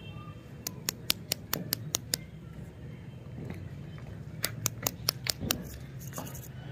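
Two runs of about seven quick, sharp clicks, roughly five a second, with a pause of about two seconds between them: fingers handling and tapping the plastic wrapper of a chewy lollipop.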